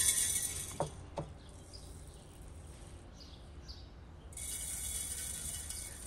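Pinches of dry seasoning dropped into a large glass jar of vegetables, the grains striking the glass in a gritty shower. This comes once right at the start and again, longer, from about four and a half seconds in, with two light knocks about a second in.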